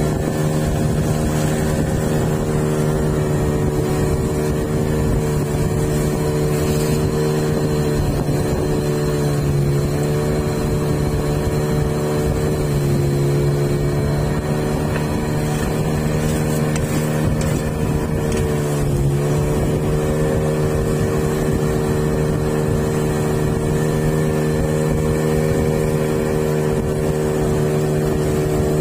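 Outboard motor of a wooden river longboat running steadily at speed, its pitch dipping briefly three times as the throttle eases and recovers.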